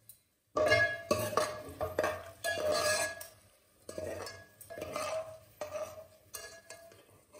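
Metal ladle scraping and clinking around the inside of an aluminium pot, scooping leftover fried onion bits out of the oil, with a ringing metallic tone. It comes in repeated strokes starting about half a second in, with short pauses between bouts.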